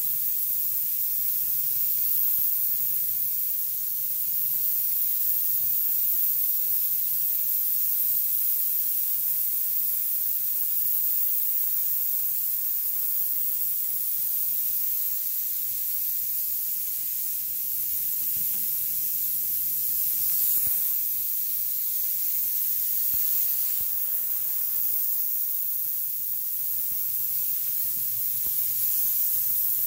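FogClean Pro fogger's wand spraying disinfectant as a fine mist: a steady high hiss, with a faint low hum underneath.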